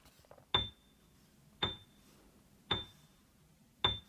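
Four short, high clinking ticks about a second apart, each with a brief ringing ping, a timing sound effect that paces the child's turn to repeat the word.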